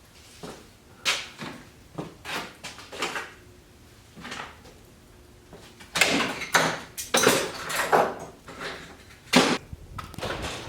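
Irregular knocks and clatter: a few light knocks early on, a dense run of louder clattering about six to eight seconds in, and one sharp loud knock near the end.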